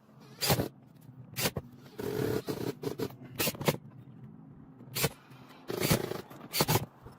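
Sharp knocks at irregular spacing, some in quick pairs, with stretches of scraping and rustling in between, from hand work on a shingled roof.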